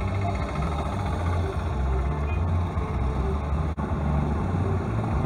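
Steady low rumble of engines and traffic heard from inside a stopped car's cabin, with one brief click about three and a half seconds in.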